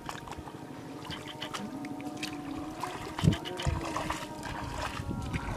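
Shallow muddy water splashing and trickling in a mesh fishing net, with many small splashes and a louder knock about three seconds in.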